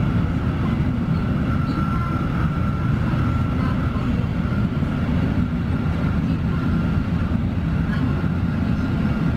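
Shinkansen bullet train heard from inside the carriage at speed: a steady low rumble of running noise with a faint, high, steady whine over it.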